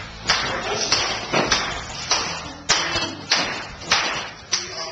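A run of about nine sharp slaps or thuds, roughly two a second, each followed by a short echo in a large hall, fading out near the end.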